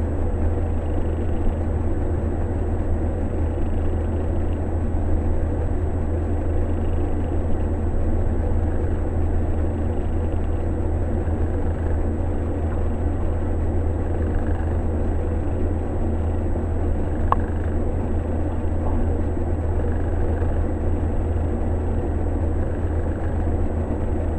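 A Scottish Fold mix cat snoring: a steady low rumble, with faint breath sounds coming back every two to three seconds.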